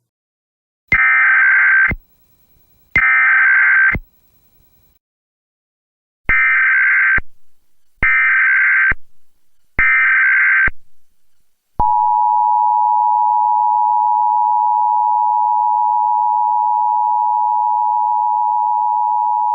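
Emergency Alert System SAME header: five short, buzzy digital data bursts of about a second each, then the EAS two-tone attention signal (853 and 960 Hz together) starting about twelve seconds in and holding steady and loud.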